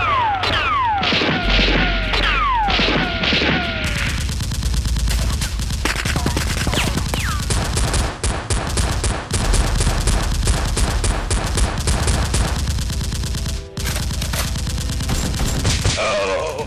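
Dense, rapid gunfire sound effects, a continuous fusillade of many shots, with several falling whistles through the first few seconds and a brief break near the end.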